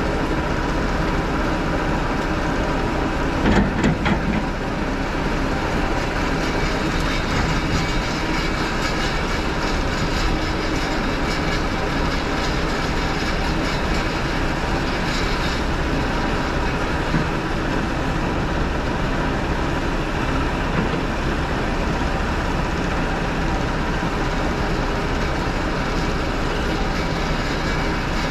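Steady running of heavy diesel earthmoving machinery, with a short burst of knocks and rumble about three and a half seconds in as an excavator bucket of dirt is dumped into a steel dump body.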